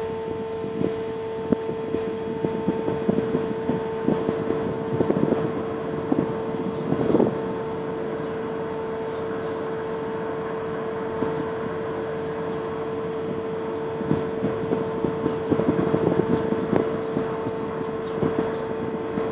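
Container ship passing close by, its machinery giving a steady droning hum on one held tone. Small birds chirp in quick series, and irregular gusts of wind rumble on the microphone.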